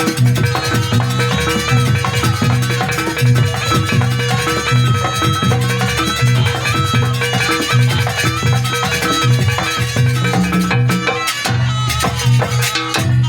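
Banyuwangi jaranan music: a live percussion ensemble of drums and tuned instruments playing a driving, repeating rhythm, with a brief thinning about eleven seconds in.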